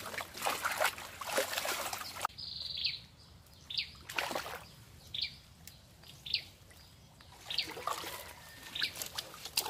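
Muddy water splashing and dribbling out through a woven bamboo basket for the first two seconds or so as it is rinsed in a drained pond. After that, a small bird gives short high chirps about once a second, with one more splash of water in between.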